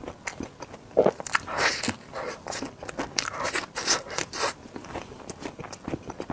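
Close-miked eating sounds: biting and chewing into soft desserts, with moist clicks and crackles, busiest in the middle.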